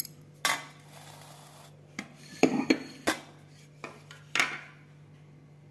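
Ground coriander being sifted in a metal wire-mesh sieve: the sieve is shaken and knocked in about six short rasping, rattling strokes, over a faint steady hum.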